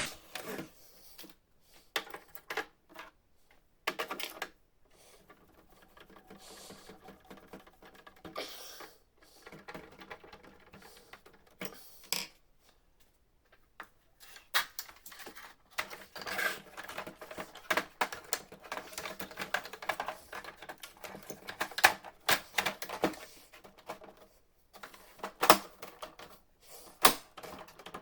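Plastic parts of a Canon MF4410 laser printer being handled, fitted and pressed into place. Irregular sharp clicks and knocks, sparse at first and coming thicker through the second half.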